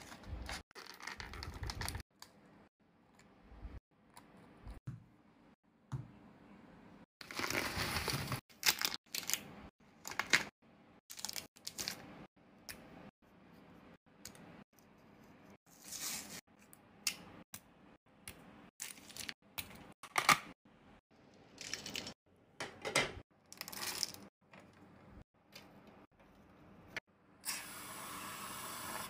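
Packaging and a small object being handled and unwrapped by hand: scattered clicks and taps, with two longer stretches of rustling, one about seven seconds in and one near the end.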